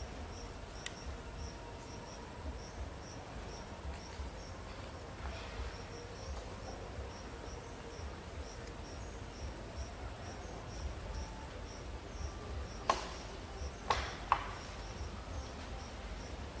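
Insect chirping steadily, a short high chirp repeated about three times a second. Near the end come three sharp clicks in quick succession.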